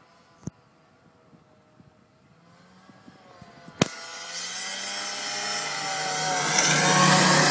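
1996 Arctic Cat Puma snowmobile's two-stroke engine running as the machine approaches across snow, faint at first and growing steadily louder to a peak near the end. Two sharp clicks, about half a second in and a louder one near the middle.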